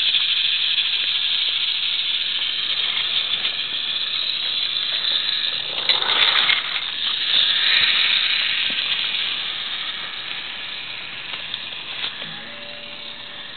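Battery-powered Geotrax toy train running on its plastic track, its motor and gears giving a steady whirring hiss that fades over the last few seconds as the train pulls away.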